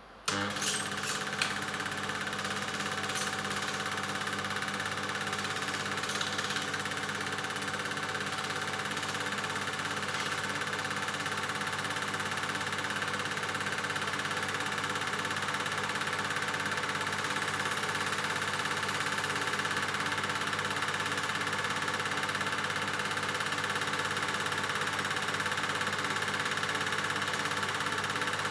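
A 1970 Bolex 18-3 Duo 8 mm film projector switched on, starting with a few clicks, then running steadily with a whirring mechanical clatter.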